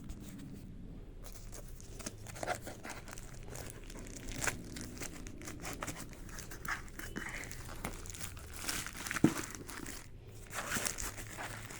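Shipping packaging crinkling and tearing as it is opened by hand: irregular crackles and rustles, with one sharp click about nine seconds in.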